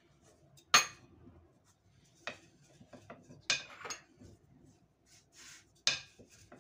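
Thin wooden rolling pin knocking and clacking against the worktop while dough balls are rolled flat on a silicone mat: a handful of sharp clacks, the loudest about a second in, with soft rubbing between.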